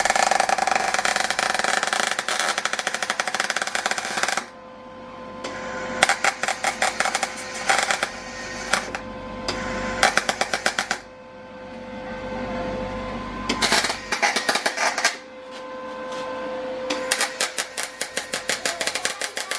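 Welder crackling in about six bursts of one to four seconds with short pauses between, welding a Holden VS Commodore differential's spider gears together to make a welded locker.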